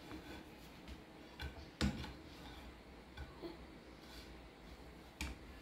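Light clicks and taps of a plastic spatula against a metal frying pan as a slice of bread is turned and pressed in the dry pan, with the sharpest tap about two seconds in and another near the end.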